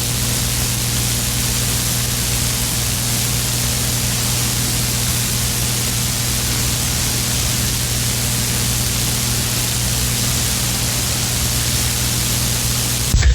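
CB radio receiver hissing with steady open-channel static between transmissions, with a steady low hum underneath.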